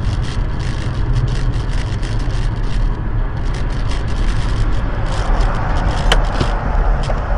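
Steady road and tyre rumble inside a car cruising on a highway, recorded by its dashcam, with many light clicks and crackles throughout and a single sharp tick about six seconds in.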